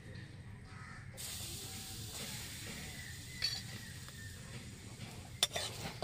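Ground turmeric sizzling in hot mustard oil in an aluminium kadai, the hiss starting suddenly about a second in as the turmeric hits the oil; it is being fried to cook off its raw smell. A sharp clink of a metal spatula against the pan comes near the end.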